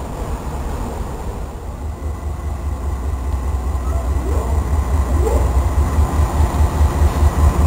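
Diesel freight locomotives rumbling, a deep engine sound that grows steadily louder.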